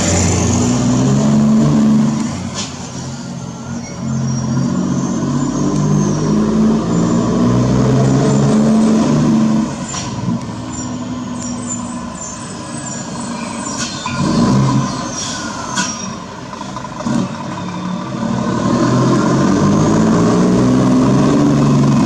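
Scania truck's diesel engine with a straight-through exhaust, running loud and rising and falling in pitch as it is revved and eased off several times. A few short sharp sounds come in between.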